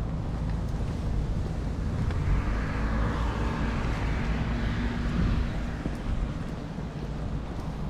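A car passing on the road alongside, its tyre hiss swelling and fading over a few seconds, over a steady low rumble of wind on the microphone.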